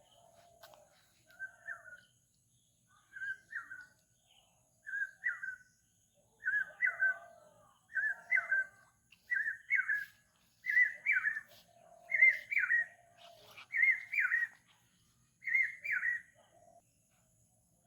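A bird calling over and over, one short two-note call about every second and a half, each call louder and a little higher than the last.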